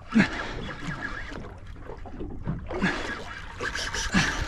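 Water lapping and sloshing against the hull of a small boat, with wind on the microphone, and a few short grunts of effort from an angler fighting a fish, the loudest about a fifth of a second in.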